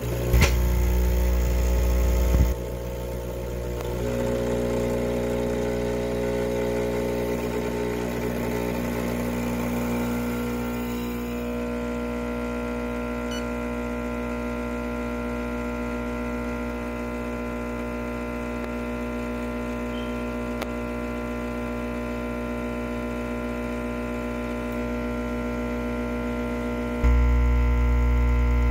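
Vibratory pump of a Rocket Appartamento espresso machine switching on with a click and running through an espresso extraction, a steady buzzing hum with a pitched drone. It is louder for the first two seconds or so, then quieter and steady, and louder again near the end.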